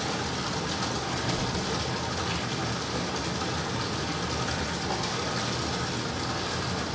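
Steady background noise with no distinct events.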